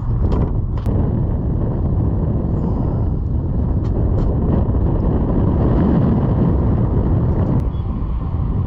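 Steady low rumble of wind buffeting the microphone, with a few light clicks in the first second.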